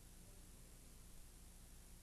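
Near silence: faint tape hiss and low hum.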